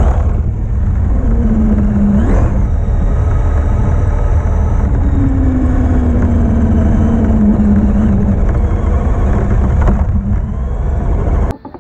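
Onboard sound of a Traxxas X-Maxx RC monster truck driving over grass: a steady, loud low rumble from the ride, with the electric motor's whine rising and falling in pitch as it speeds up and slows. It cuts off suddenly near the end.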